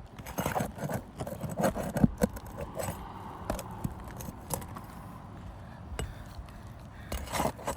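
Metal roofing tool clicking, clinking and scraping against asphalt shingles and roofing nails as shingles are worked loose, in irregular bursts busiest in the first couple of seconds and again near the end.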